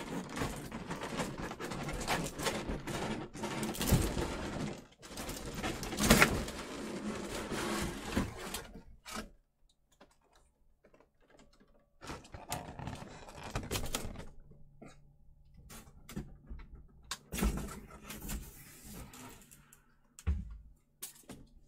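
Large cardboard statue box being opened and handled: rustling and scraping of cardboard and packaging with a few sharp knocks, a short pause in the middle, then more handling.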